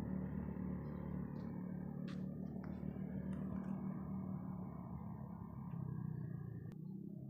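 Steady low engine hum with a few light clicks; the hum drops away suddenly near the end.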